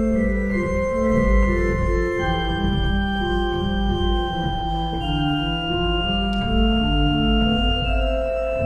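Casavant pipe organ playing three-voice counterpoint on 8' stops: a slow motif in long held notes sounds over lower lines moving in quicker notes.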